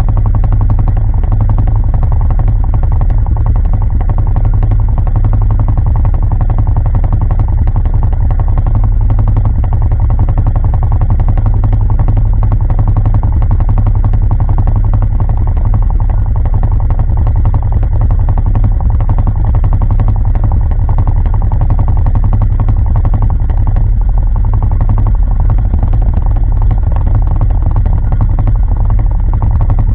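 ATV engine running at a steady idle close by, a low, even sound with no change in speed.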